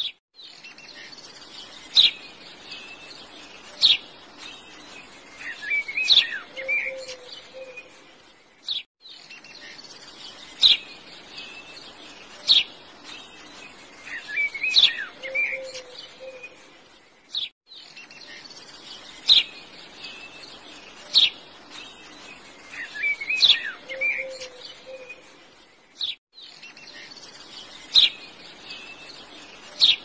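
Birds chirping: sharp single chirps and short warbling calls, the same stretch of recording repeating as a loop about every nine seconds with a brief gap between repeats.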